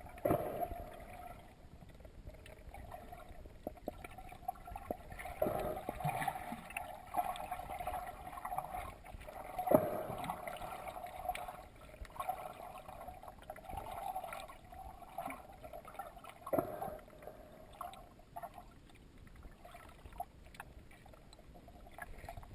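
Muffled underwater sound of moving water, picked up by a camera held below the surface, with a few sharp knocks, the loudest about halfway through.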